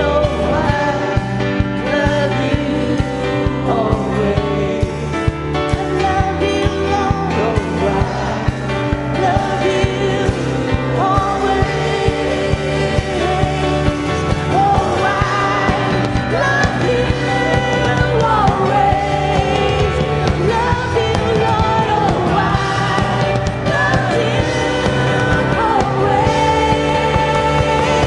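A church worship band playing with singers, one contemporary Christian praise song sung through.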